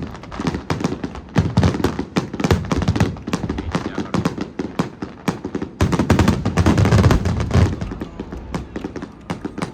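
Fireworks bursting in rapid succession, a dense run of bangs and crackles that is heaviest about one to three seconds in and again from about six to seven and a half seconds, easing off near the end.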